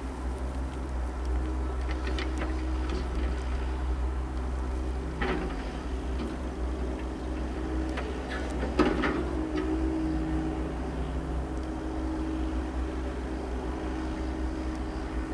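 Yanmar compact excavator's diesel engine running steadily, with a string of short knocks from the machine at work; the loudest comes about nine seconds in.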